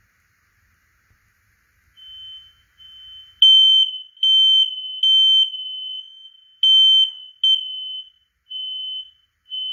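Ceiling smoke alarm sounding during a test: a shrill single-tone beep repeated in pulses of about half a second, starting about two seconds in and loudest through the middle.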